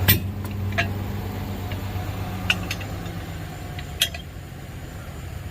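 A handful of sharp metal clinks and knocks as the steel parts and pin of a pickup-truck bed crane are worked into line, the loudest right at the start and another about four seconds in, over a steady low hum.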